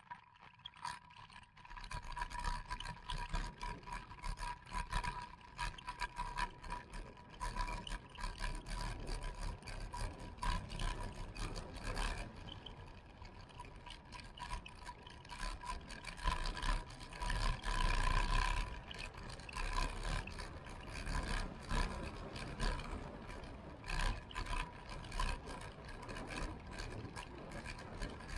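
Wind rushing over the microphone and the tyre rumble of a road bike descending at speed, with frequent clicks and rattles as it runs over rough, patched asphalt.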